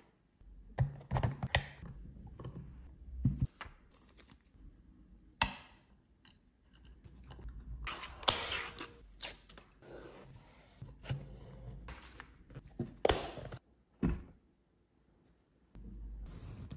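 Thin wooden parts of a DIY pinhole camera kit being handled and fitted together by hand: irregular wooden taps, clicks and knocks, with stretches of rustling and scraping.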